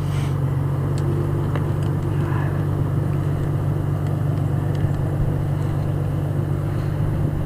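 Engine of a machine lifting railway ties on a line, running steadily while the line is raised. A few faint clicks are heard about a second in.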